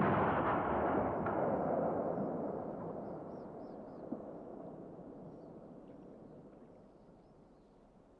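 A sudden loud boom that rolls on and fades slowly over several seconds.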